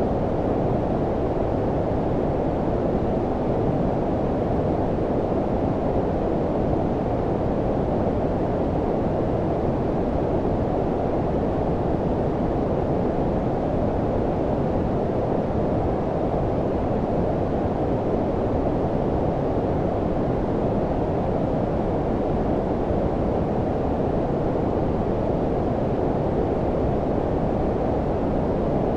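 Steady synthetic low-frequency noise, deep and rumbling, its energy mostly below about 1 kHz with the highs rolled off, even and unchanging throughout.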